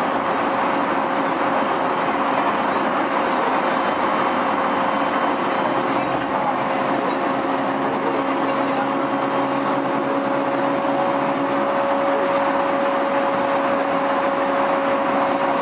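Cabin of a JR E231 series electric train standing at a station: steady hum of the car's air conditioning and electrical equipment with a steady whine through it, and a lower hum that comes in about six seconds in and fades about twelve seconds in.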